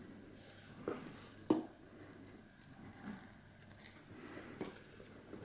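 Paper leaflets and booklets being handled in a cardboard box: light rustling with a few short taps, the sharpest about a second and a half in.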